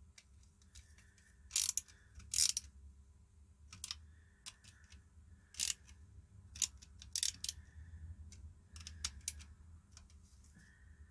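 Small hand screwdriver driving tiny 4 mm screws through a circuit board into a plastic case: scattered sharp clicks and light scraping as the bit turns in the screw heads.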